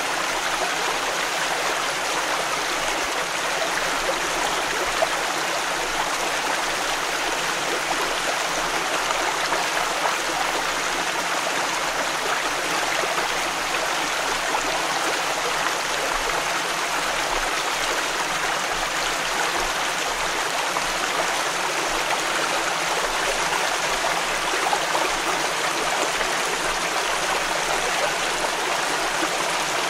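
Close-up stream of water flowing steadily, with splashing and gurgling.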